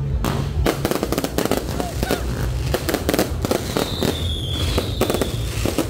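Aerial fireworks going off in a rapid run of bangs and crackles. A high whistle lasting over a second comes about four seconds in.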